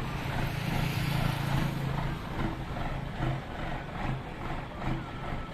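Mitsubishi Fuso truck's diesel engine idling steadily while it warms up.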